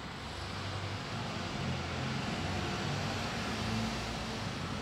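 A low, steady mechanical rumble over a hiss of background noise, swelling slightly in the middle and easing again.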